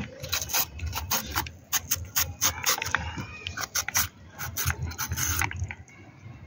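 A kitchen knife scraping the knobbly skin off bitter gourds (karela), a quick irregular run of rough scraping strokes that thins out near the end. A brief high call is heard about halfway through.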